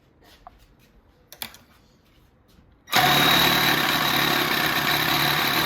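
Electric spray-paint can shaker machine switched on about three seconds in, then running with a loud, steady mechanical shaking noise as it agitates a capped water bottle of protein drink. A few faint handling clicks come before it starts.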